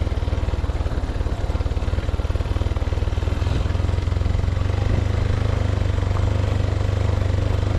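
Motorcycle engine running steadily under way, heard from the rider's seat as a low, even drone; it gets a little louder in the second half.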